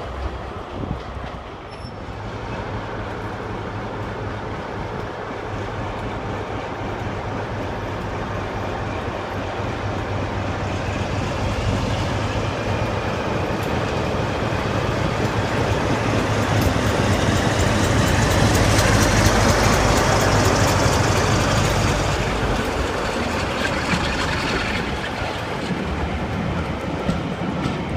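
A train running past on the rails: a steady low engine drone with wheel and rail noise that builds to its loudest about two-thirds of the way through, then eases off, with a faint high whine above it.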